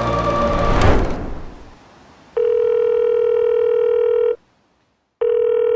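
Background music swells about a second in and fades out. Then a telephone ringback tone sounds twice, each ring about two seconds long with a short gap between, as a phone call rings through.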